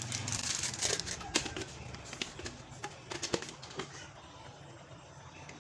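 Light clinks and taps of a seasoning jar and metal pot lid being handled over a cooking pot: a scattering of small sharp knocks through the first four seconds, then quieter.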